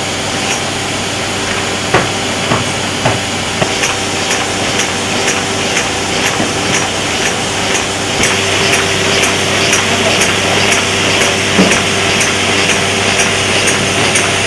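Sheet-fed paper-folding machine running as it feeds printed book sheets off the stack. It makes a steady motor hum with a hiss, a few sharp knocks about two seconds in, then a fast even clicking of about three clicks a second as the sheets go through.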